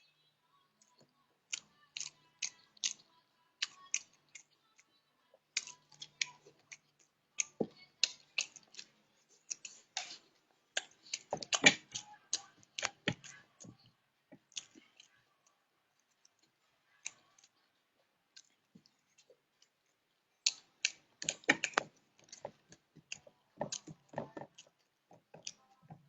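Irregular short clicks and taps, often in quick clusters, with a mostly quiet stretch in the middle.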